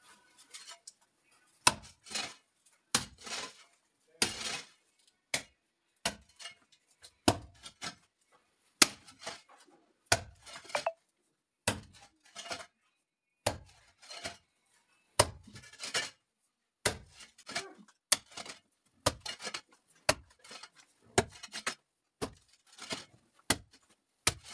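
A short-handled digging tool chopping into a packed earth floor, one strike about every second or so, each blow followed by a brief scrape of loose soil.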